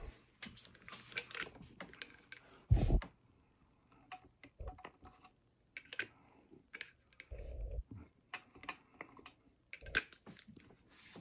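Small clicks and taps of a smoke-fluid bottle being uncapped and handled over a toy train locomotive, with a dull thump about three seconds in and a softer one past the middle.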